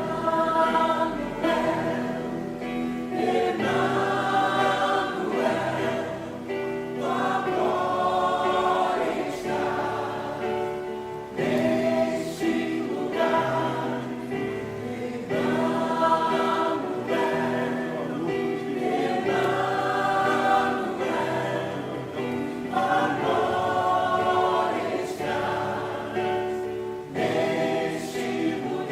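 Church choir singing a hymn, several voices together in harmony, in phrases a few seconds long.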